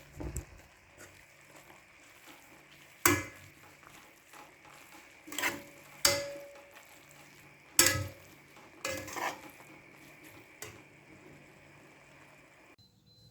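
Scattered light knocks and clinks, about seven in all, with quiet gaps between them, like small hard objects being handled and set down.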